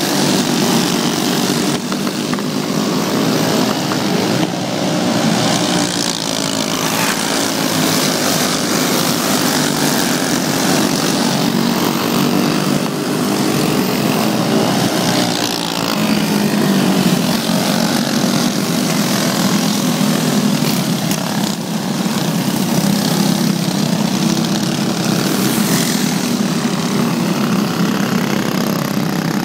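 A pack of dirt-track racing karts with stock Briggs & Stratton Animal single-cylinder four-stroke engines running at race speed. Their overlapping engine notes rise and fall in pitch as the karts pass.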